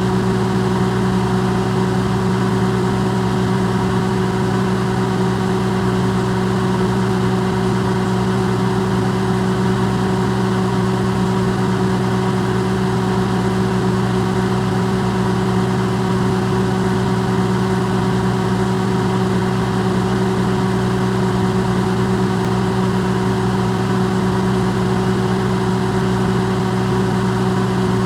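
Electrolux microwave oven running, a steady mains hum with a whirring noise, recorded amplified and held unchanged.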